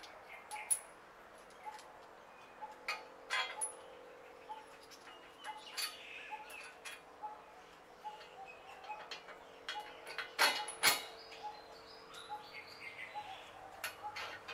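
Small steel nuts and washers clinking against each other, the tiled floor and the steel frame as they are handled and fitted onto a bolt. The clinks come irregularly, with two sharper metal knocks about two-thirds of the way in.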